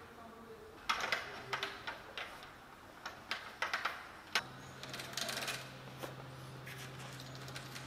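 Faint small clicks and scraping from a BMX rear hub driver being cleaned of packed dirt with a drink-can tab, in short irregular spells. A low steady hum starts about halfway through.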